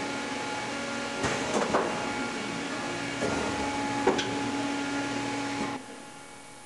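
Hot plate welding machine running with a steady hum, broken by a few short mechanical clunks and clicks from its moving platen and fixtures, about a second and a half in and again near three and four seconds. Near the end the hum drops away, leaving a fainter hiss.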